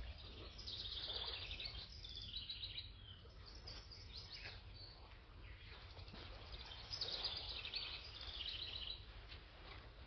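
Songbirds singing: short high, rapidly trilled phrases, in a burst during the first few seconds and another about seven seconds in, over a faint steady low rumble.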